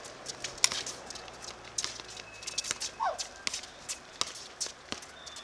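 Quick footsteps and sharp taps on a hard floor, with a short squeak about three seconds in.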